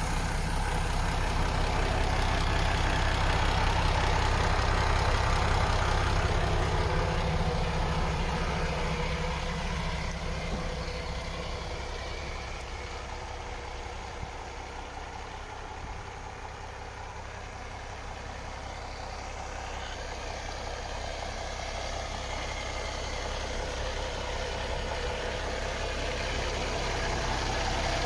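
MAN TGX 26.460's 12.4-litre straight-six diesel idling steadily. It is louder at first, fades to its quietest about two-thirds of the way through, then grows louder again near the end.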